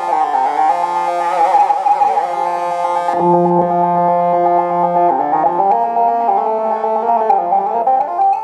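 Casio XW-G1 synthesizer playing a patch of held chords that change every couple of seconds, with a wavering, shimmering stretch about one to three seconds in.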